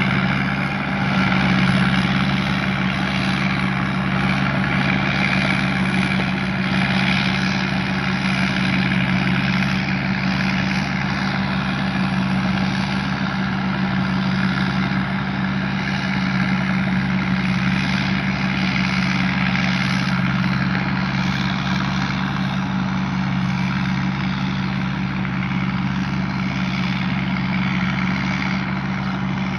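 Tamco S9000 combine harvester's Isuzu 6HK1 six-cylinder diesel running steadily, a constant deep engine hum under the rushing noise of the machinery, with a thin high whine over it.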